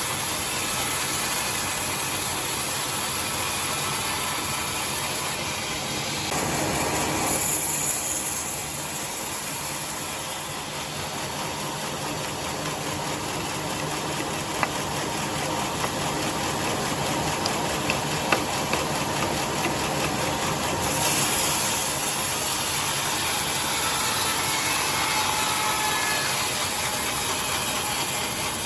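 Sawmill machinery running steadily while sawing a log into boards, with a swell in the noise about a quarter of the way in and a few sharp clicks in the middle.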